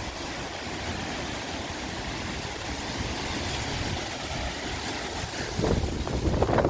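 Wind blowing over the microphone: a steady rush, with heavier low buffeting gusts near the end.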